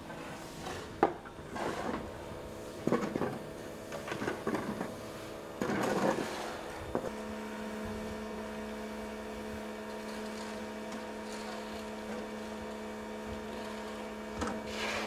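Steady motor hum made of several pitches, with a few scuffs and knocks in the first seven seconds. About seven seconds in a lower tone joins, and the hum runs on evenly after that.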